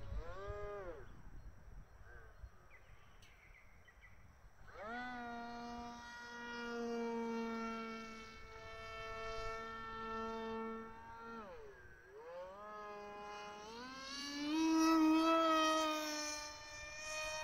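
Motor of a radio-controlled model F-22 jet whining as the throttle changes. It spools up about five seconds in and holds a steady pitch, drops away briefly a little past the middle, then spools up again to a higher, louder pitch that it holds.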